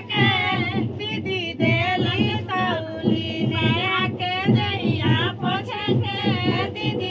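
Unaccompanied group of female voices singing a traditional wedding folk song, several voices together, the kind sung while the groom is bathed with scented soap and given a towel.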